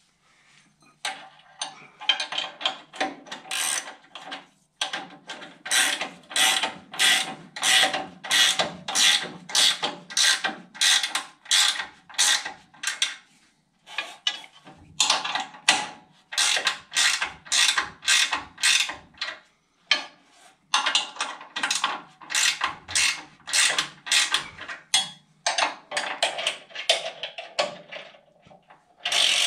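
Hand ratchet wrench clicking in quick back-and-forth strokes, about two a second, in runs with short pauses, tightening new bolts with lock washers on a lower control arm.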